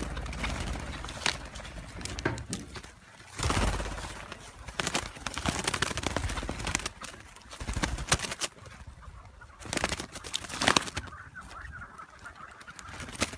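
A flock of chukar partridges clucking and flapping their wings, with irregular sharp clicks and short noisy bursts, the loudest about three and a half, eight and ten seconds in.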